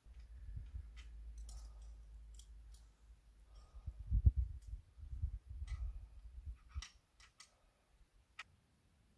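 A low, uneven rumble, loudest about four seconds in and fading out around seven seconds, with scattered sharp clicks and light knocks over it.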